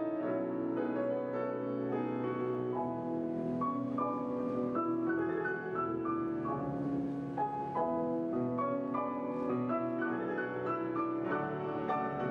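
Grand piano played solo: a classical piece of many overlapping ringing notes and chords, at a steady even level.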